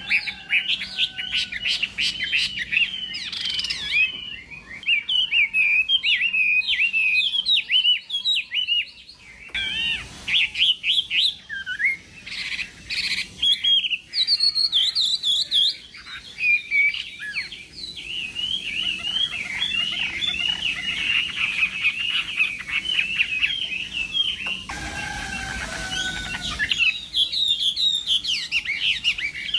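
Chinese hwamei (melodious laughingthrush) singing almost without pause: a long, varied song of quick whistled notes and rapid trills.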